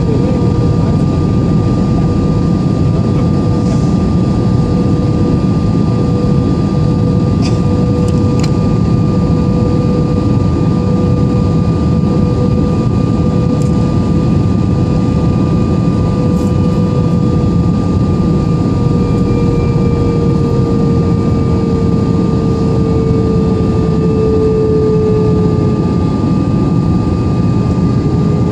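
Steady cabin noise of a jet airliner descending on approach, heard inside the cabin: a constant rush of engines and airflow, with a steady hum that dips slightly in pitch near the end.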